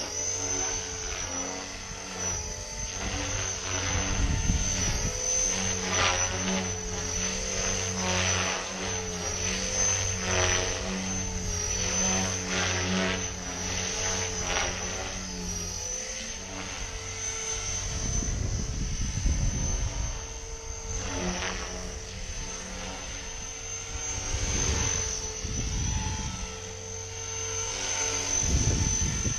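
Electric 3D RC helicopter (GAUI X3 on a 6S brushless motor) flying aerobatics at medium headspeed: a steady high motor whine under the rotor blades' whooshing, which swells and fades and wavers in pitch as the blades load up through the maneuvers. Low rumbles come in about two-thirds of the way through and again near the end.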